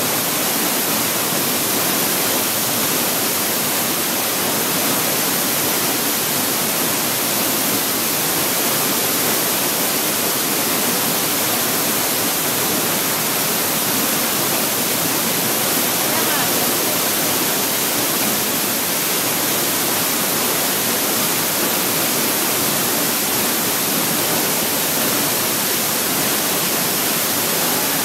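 Waterfall pouring close by: a loud, steady rush of falling water and spray.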